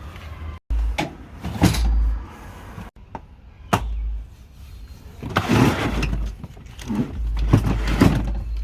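Irregular knocks, clunks and rattles of gear and tools being handled and moved, with a low rumble between them and a busier clatter near the end. The sound cuts out abruptly twice early on.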